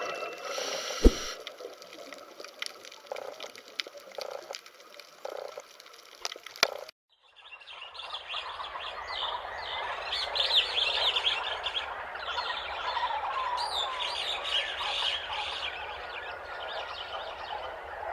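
A dense chorus of many small birds chirping and twittering at once, starting suddenly after a brief silence about seven seconds in. Before it there are quieter scattered knocks, with one sharp knock about a second in.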